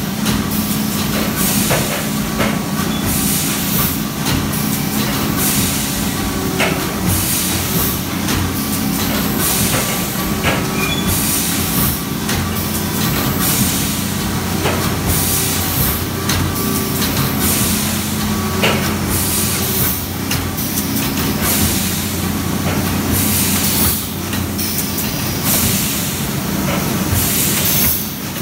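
Plastic thermoforming line running steadily: a constant machine hum, with a hiss that comes back every second or two and a few sharp clicks.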